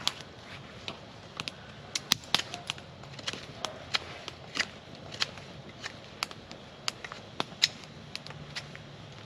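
Wood campfire crackling, with irregular sharp pops scattered throughout.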